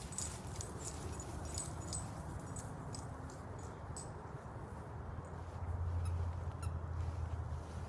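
Small dog's paws pattering and rustling on dry, dormant grass as a West Highland terrier scampers about, with scattered light clicks in the first half, over a low rumble that swells briefly near the end.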